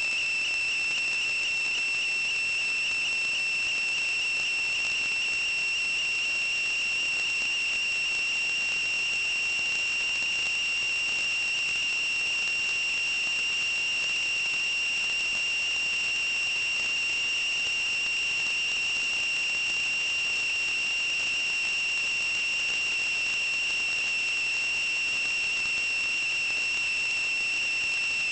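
A steady, high-pitched whistle: one unchanging tone with a fainter overtone above it, held without a break over an even hiss.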